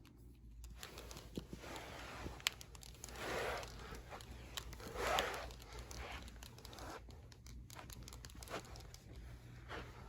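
Toy figures being handled and moved, with faint rustling and small clicks. Two louder, noisy whooshing swells come about three and five seconds in.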